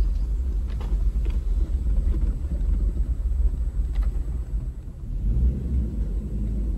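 Toyota Land Cruiser 70 driving slowly over a rutted, muddy dirt track, heard from inside the cabin as a steady low rumble of engine and tyres. A few light knocks come about a second in and again around four seconds, and the rumble eases briefly after that before picking up again.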